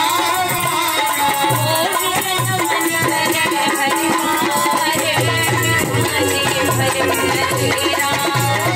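Live bhajan music: a harmonium plays the melody over tabla and dholak drum beats, with wooden kartal clappers rattling in rhythm.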